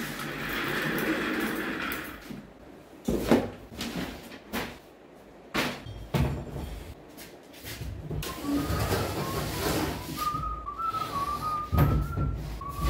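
Furniture and belongings being moved in a small room: rustling and scraping, then a series of knocks and bumps, the sharpest about three seconds in. From about eight seconds in someone whistles a short wavering tune over the handling noise.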